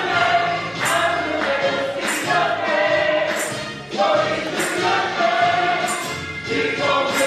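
Gospel choir singing with instrumental accompaniment, a sharp percussion hit landing about once a second on the beat.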